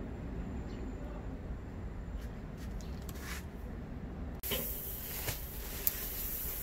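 A low, steady rumble with a few faint ticks, then, from about four and a half seconds in, a steady hiss with occasional sharp clicks: dry rice husks pouring from a woven sack into a kettle grill.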